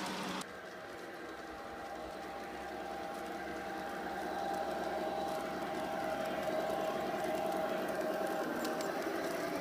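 Garden model train running along its track, the motor and gears whining steadily over the rattle of the wheels, growing louder over the first few seconds as it comes closer.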